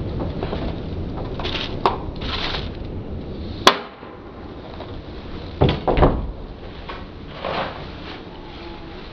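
Hand-held litter picker clacking and knocking against a plastic wheelie bin: a few sharp clicks, the loudest a little before halfway, then two duller knocks about two seconds later. A low rumble runs under the first half.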